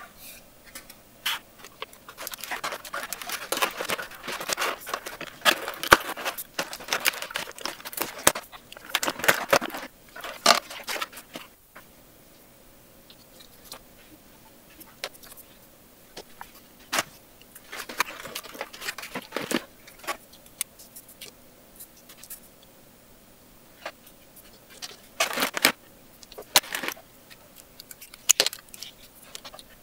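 Crinkling of plastic toy packaging and clicks of small plastic doll accessories being handled and set down. The sounds come in scattered bursts: a busy stretch through the first ten seconds or so, then quieter with occasional clusters of clicks.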